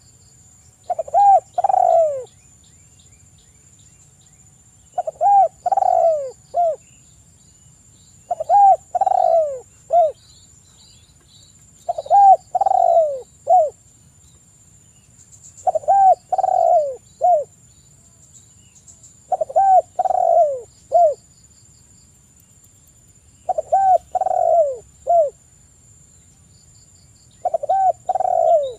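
Spotted dove (tekukur) cooing its song: short phrases of three or four falling coos, repeated about every four seconds.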